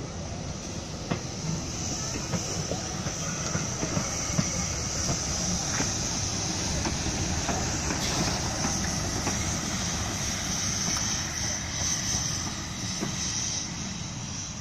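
A steam-hauled train passing close by, its coach wheels clicking and rumbling over the rails while class 423.0 steam tank locomotive 423.0145 goes by with a steady hiss of steam. The sound swells through the middle and eases as the train draws away near the end.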